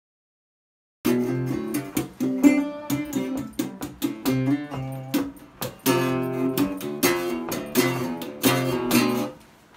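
Resonator guitar strummed in a run of chords, starting about a second in and stopping shortly before the end.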